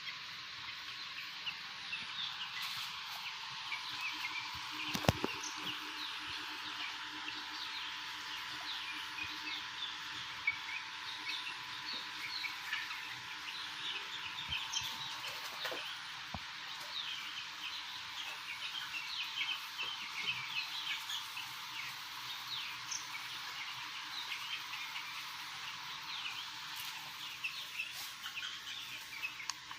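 Many twelve-day-old chicks cheeping, a dense chorus of short high peeps with a steady faint hum underneath. A single sharp click about five seconds in.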